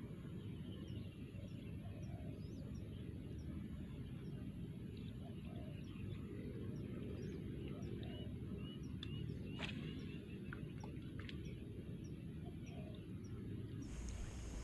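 Outdoor ambience of small birds chirping, short high calls repeated over and over, above a steady low rumble, with a few sharp clicks past the middle.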